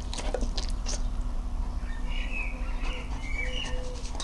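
Backyard birds chirping, and from about three seconds in a pigeon cooing in short low notes repeated at an even pace. A few soft taps in the first second, over a steady low rumble.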